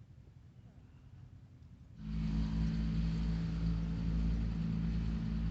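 A golf cart running: about two seconds in, a steady low motor hum with a wash of rolling noise comes in suddenly and holds level.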